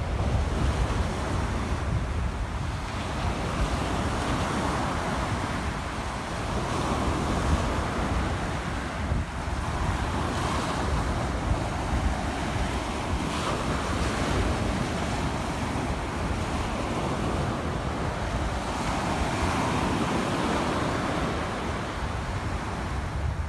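Surf breaking and washing up a sandy beach, rising and falling in slow swells, with wind buffeting the microphone in a steady low rumble.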